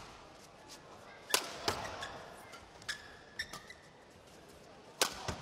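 Badminton rackets striking a shuttlecock in a fast men's doubles exchange: a quick series of sharp, crisp hits at uneven spacing, with the loudest about a second and a half in and again near the end.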